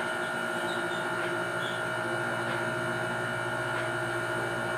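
Steady background hum of an appliance in the room: several constant pitched whines held over a faint hiss, unchanging throughout.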